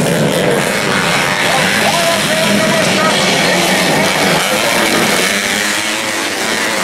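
A pack of race motorcycles, a mix of modified two-strokes and four-strokes, running hard on a dirt track: a dense engine buzz whose pitch wavers up and down as riders open and close the throttle.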